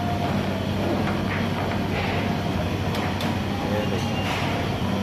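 Steady rumble of a commercial kitchen gas burner on high flame under a pan of shredded carrots cooking in sugar syrup, with a constant low hum beneath. The high heat is meant to boil the water off the carrots.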